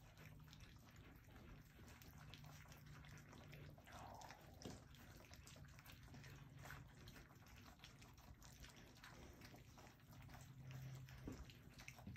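Faint wet lapping, smacking and clicking of young puppies eating from a metal food bowl, with a brief squeak about four seconds in.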